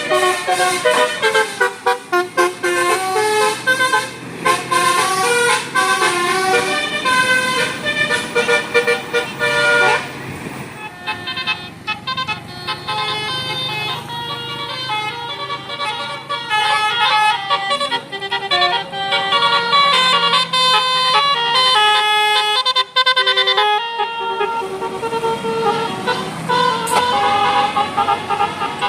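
Bus 'telolet' multi-tone air horns playing melodies, several notes at once that step from pitch to pitch in quick runs, changing tune about ten seconds in and again about twenty-four seconds in.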